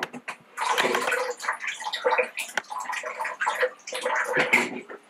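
Liquid pouring or gurgling, a steady sound that starts about half a second in and stops just before the end.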